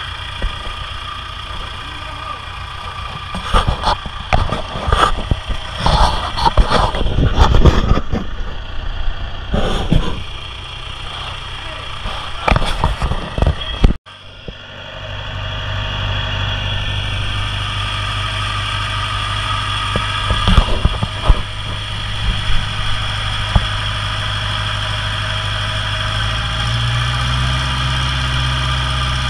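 A large engine on a seawall construction site runs steadily, with irregular knocks and clatter through the first half. After a sudden break about halfway through, the engine runs on evenly and speeds up near the end.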